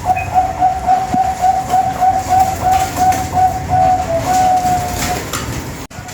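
Zebra dove (Bangkok-type perkutut) cooing: a long run of quick, even coos at one steady pitch, about three or four a second, lasting some five seconds. The sound cuts out abruptly for an instant near the end.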